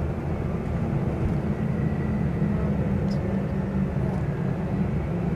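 Steady low rumble of a moving passenger vehicle, heard from inside its cabin.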